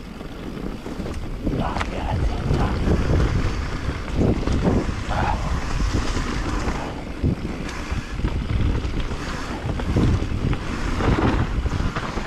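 Wind buffeting the microphone over the rumble of knobby tyres on a dirt trail as an electric mountain bike rides downhill, with frequent knocks and rattles from the bike going over bumps.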